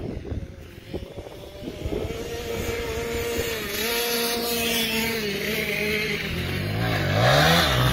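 A small dirt bike's engine running at steady high revs, coming closer and growing louder, then dipping and rising in pitch near the end as the throttle is eased off and opened again.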